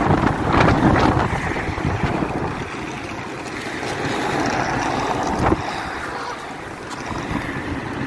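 Wind buffeting the microphone: a rushing rumble that rises and falls, with a few brief knocks in the first second and again about five and a half seconds in.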